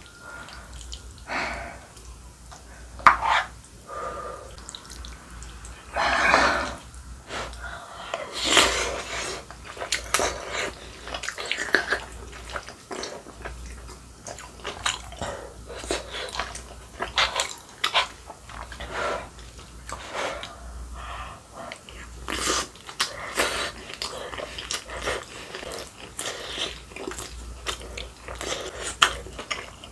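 Close-up eating sounds: a spoon and ladle scooping rice cake and dumpling soup, broth dripping, and chewing, made up of many short clicks and small wet noises.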